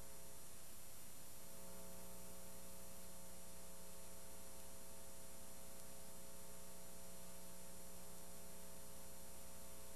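Steady electrical hum with a layer of hiss and no other sound: an empty soundtrack.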